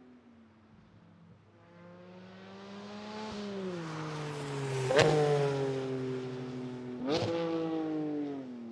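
Porsche 718 Cayman GT4 RS flat-six with a Fi catless downpipe and valved muffler (valves closed) driving past at light throttle. The engine note builds from faint to loudest about five seconds in, with a sharp crack there and another about two seconds later, then the note drops away.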